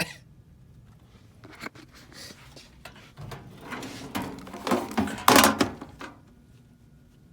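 A person's loud sneeze: a rising wind-up over a couple of seconds, then one explosive burst about five seconds in that quickly dies away.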